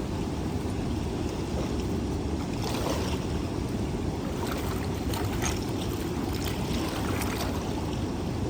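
Steady low rushing noise of wind and water, with no clear tone of an engine.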